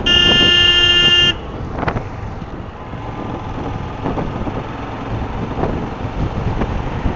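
A vehicle horn sounds one steady blast lasting about a second and a half, then the rumbling road and wind noise of a motorcycle ride in traffic carries on.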